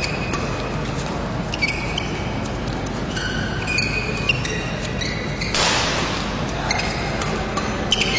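Sports shoes squeaking on an indoor court floor during a doubles rally: short high squeaks, some sliding in pitch, with sharp hits and a hall's crowd murmur behind them.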